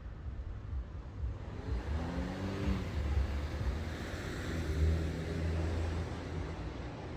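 A motor vehicle driving past: engine hum and tyre noise swell over the first few seconds, peak a little past the middle, then fade away.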